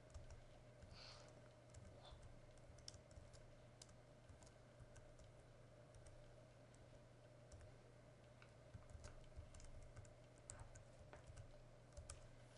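Faint typing on a computer keyboard: irregular keystrokes entering a command-line switch, over a low steady hum.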